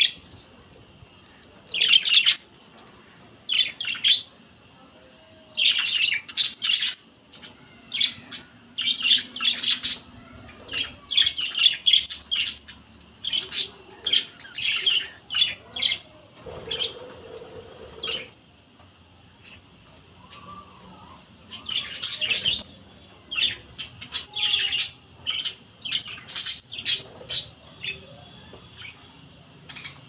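A flock of budgerigars chirping and squawking, short sharp calls coming in irregular clusters.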